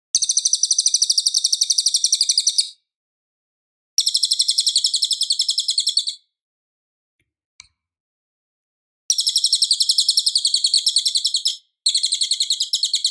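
Cililin songbird singing in fast chattering trills of rapidly repeated high notes, about eight a second. There are four phrases, each two to two and a half seconds long, with short pauses between them.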